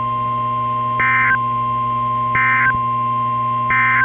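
Emergency Alert System SAME header from a NOAA Weather Radio broadcast: three identical short bursts of shrill digital data tones, about a second and a third apart, marking the start of a new alert. A steady thin tone and radio hiss run underneath.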